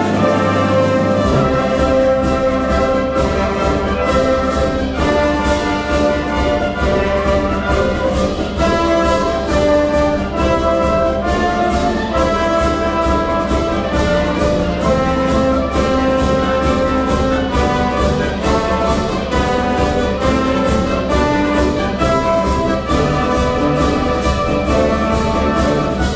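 Student symphony orchestra playing a Christmas-carol medley, full strings with the brass section to the fore, loud and steady with a regular pulse.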